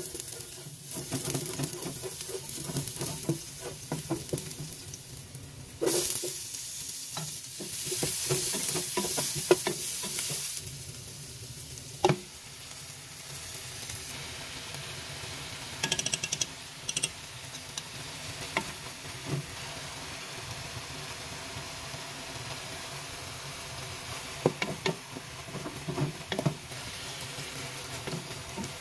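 Chopped garlic and then chicken pieces sizzling in oil in a nonstick pot, stirred with a wooden spatula that scrapes and knocks against the pan. The sizzle gets louder from about six to ten seconds in, with a sharp knock at about twelve seconds.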